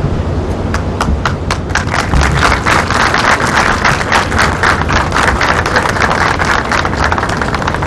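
A group applauding. Scattered hand claps start about half a second in and build within a couple of seconds into dense, continuous applause, over a steady low rumble.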